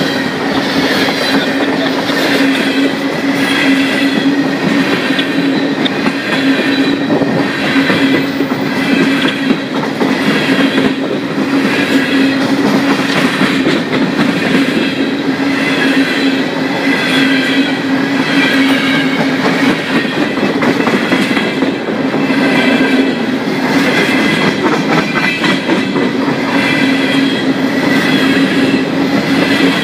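Freight train of open-top coal hopper cars rolling past close by: steel wheels clacking on the rails, with a steady low hum and a high ringing that swells and fades about once a second.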